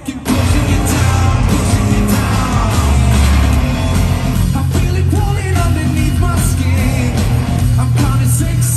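Live rock band playing loud through a festival PA, with a singer over keyboards, electric guitar, bass and drums; the full band crashes in just after the start after a quieter moment.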